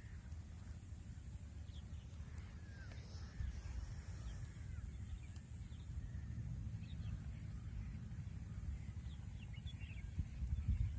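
Faint bird calls, short and scattered, over a steady low rumble.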